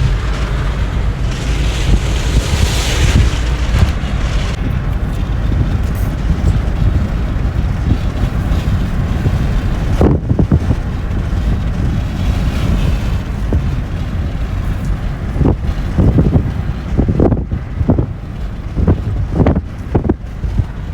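Wind buffeting the microphone: a loud, continuous rumble with a rushing haze above it, broken by several sharper gusts in the last few seconds.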